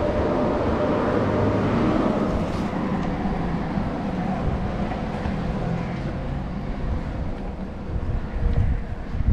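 Road traffic on a residential street: a car passing, its tyre and engine noise steady at first and then slowly fading. Wind buffets the microphone near the end.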